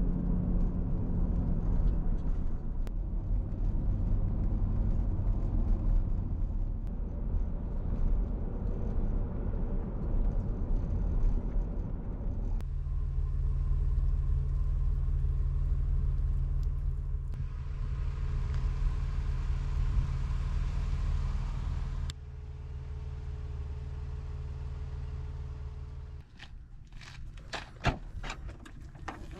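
A car driving, with a steady low rumble of engine and road noise. The rumble changes abruptly about 12 and 22 seconds in, then drops quieter near the end, where a few clicks are heard.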